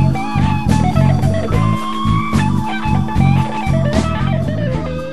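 Guitar-led blues background music: a lead guitar line with bent notes over bass and drums, starting to fade near the end.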